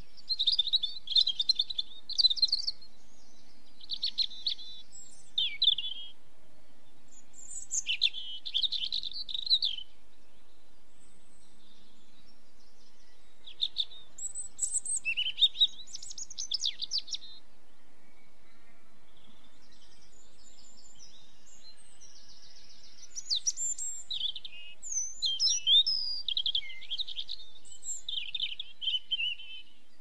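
A small songbird singing bursts of high, quick twittering phrases, about five phrases a second or more long with quiet gaps between them.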